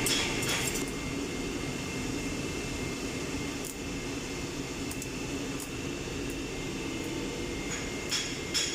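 Steady low workshop machinery hum, with a few sharp metallic clinks around the start and a cluster near the end.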